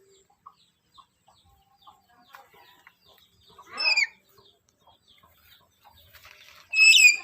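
Black-capped lory calling twice: one loud call about four seconds in and a louder one near the end.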